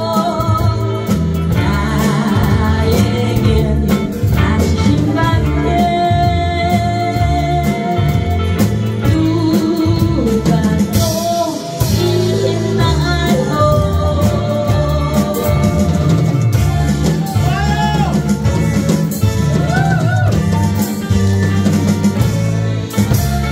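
A woman singing a Korean ballad live, backed by a band of drums, electric guitar, bass guitar and keyboard playing a steady beat.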